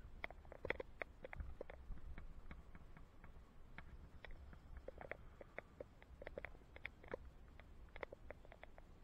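Faint, irregular clicks and light rattles, several a second and bunched in clusters, over a low rumble, from a bicycle ride recorded on a helmet camera.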